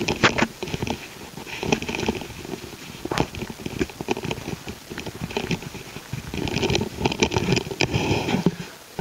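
Cloth rustling and soft knocks as a woollen blanket is folded and laid on a yoga mat, with scuffs of a person shifting about on it. The rustling comes in irregular bouts with a few sharp clicks, and is busiest between about six and a half and eight and a half seconds in.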